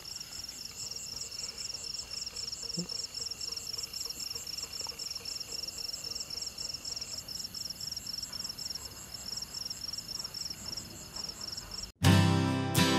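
Crickets chirping in a steady, evenly pulsed, high-pitched chorus. About a second before the end it cuts off abruptly and strummed acoustic guitar music begins.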